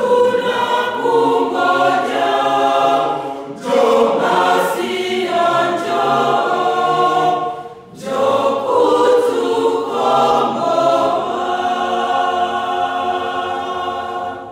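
Mixed choir of men and women singing a Swahili church song, with short breaks a little under four seconds in and about eight seconds in, then a long held final chord that cuts off at the close.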